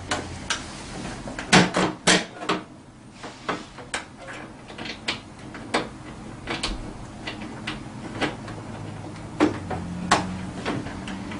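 Irregular clicks and knocks of metal parts being handled as Allen bolts are started by hand into a scooter's rear rack mounts.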